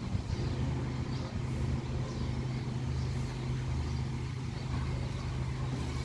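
Strong wind blowing through leafy trees, the leaves rustling, with a steady low rumble of wind on the microphone.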